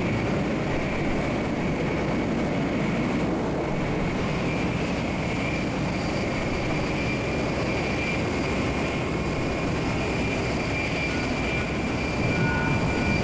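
Steady rushing rumble of a Shinkansen bullet train running at speed, heard inside the carriage, with a faint high whine over it.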